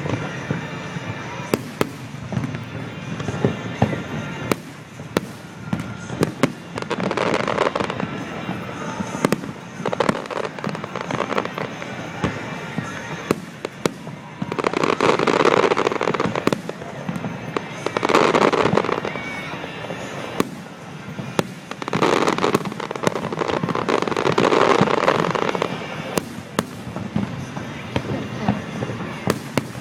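Fireworks display: a steady run of sharp bangs and crackles, with several louder swells a second or two long.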